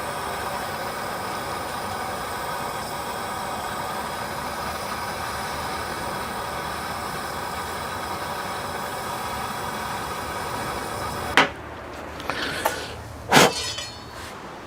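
Handheld gas torch burning with a steady hiss as it lights wood pellets in a smoke tube; it shuts off abruptly about eleven seconds in, followed by a few sharp knocks.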